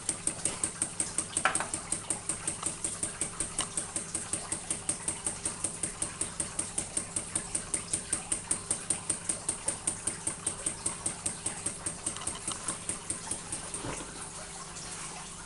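Ringbom Stirling engine driving a small generator, beating rhythmically at about five strokes a second. The burner has been taken off, so the loaded engine is running down on its stored heat, and the beat dies away near the end as it stops.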